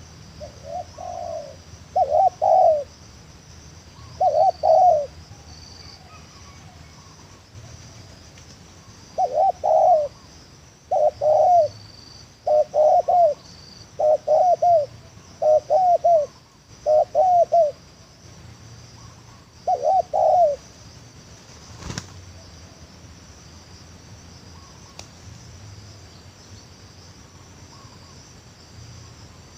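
Spotted dove cooing in short repeated phrases, in groups, stopping about two-thirds of the way through. A steady high insect chirring runs underneath, and a single sharp click comes near the end.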